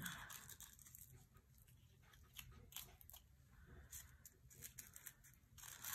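Small squares of paper being scrunched up between the fingers, giving faint, scattered crinkles.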